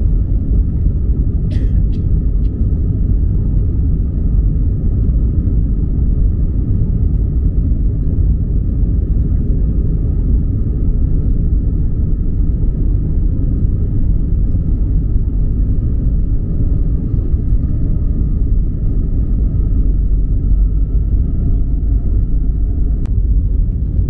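A car driving at a steady speed: an even low rumble of road and engine noise with a faint steady whine above it, and one short click about a second and a half in.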